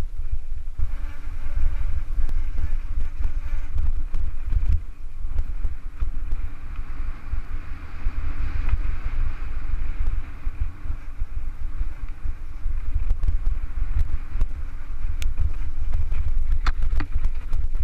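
Heavy wind rumble on the microphone of a mountain bike riding down a dirt trail, over a steady hiss of the tyres on dry dirt. A few sharp knocks and rattles from the bike come near the end.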